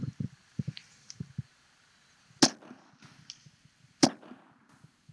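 Two pistol shots about a second and a half apart, heard through the cup of a Caldwell E-Max Pro electronic earmuff sealed over the microphone. The muff shuts its amplification down on loud noise, so each shot comes through as a short, muffled crack that dies away quickly.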